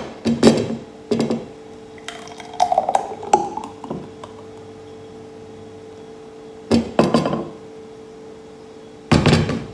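Knocks and clinks of a blender jug being lifted off its base and handled over a glass mug while thick oat smoothie is poured. The knocks come in separate clusters, and the loudest is near the end.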